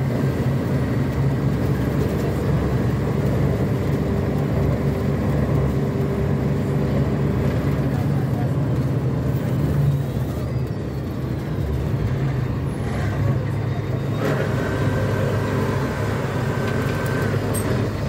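Mercedes-Benz O500U city bus's rear-mounted six-cylinder diesel engine running, heard from inside the bus; its steady hum drops about halfway through. A thin steady high tone sounds for about three seconds near the end.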